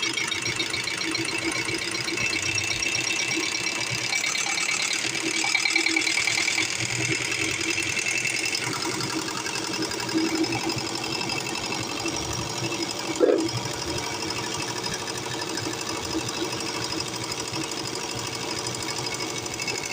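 Rebuilt Ford diesel injection pump running on a calibration test bench: a steady, fast mechanical rattle and chatter, with a single sharp knock about two-thirds of the way through.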